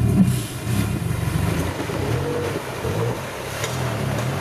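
Engine of a modified Toyota off-road truck under load, its pitch rising and falling as the throttle is worked over rocks in a creek, with the tyres splashing through water.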